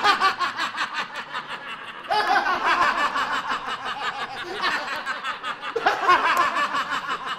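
Men laughing hard: loud, rapid, pulsing laughter in several long bouts.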